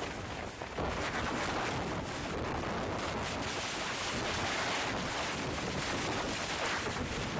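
Storm wind of about 60 miles an hour buffeting a tent, with the tent fabric flapping and wind noise on the microphone. It gets louder about a second in.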